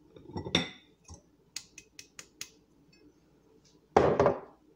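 Kitchen glassware and utensils clinking against a glass mixing bowl as sugar is tipped in from a measuring cup: a clink about half a second in, a quick run of about five light clicks around two seconds in, and a louder clatter near the end.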